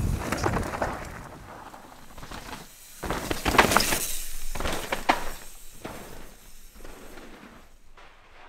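Mountain bike descending a rocky dirt trail: tyres crunching and the bike clattering over rock and roots, fading away, then a sudden loud rush of tyre noise and rattling as the bike passes close about three seconds in, dying away again.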